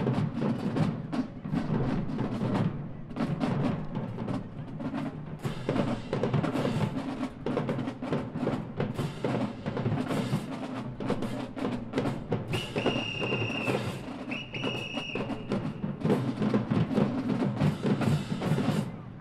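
High school marching band drumline playing a cadence: snare drums, tenor drums and bass drums with crash cymbals struck in rhythm. Two long whistle blasts sound a little past the middle.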